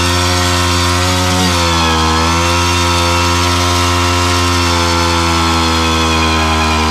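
WSK 125 motorcycle's single-cylinder two-stroke engine running steadily with the bike standing still. Its pitch dips briefly and recovers about a second and a half in.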